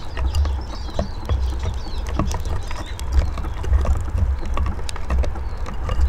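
Eurasian siskins feeding at a wooden bird table: irregular light clicks and taps of beaks and feet on wood and seed, with a few faint high chirps, over a steady low rumble.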